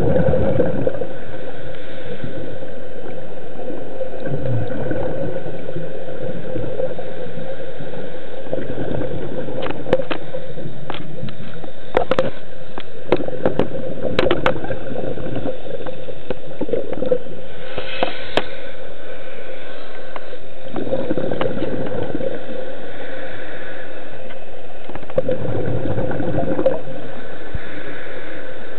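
Scuba regulator breathing underwater: exhaled bubbles gurgle in swells every four to five seconds over a steady hum. A run of sharp clicks comes in the middle.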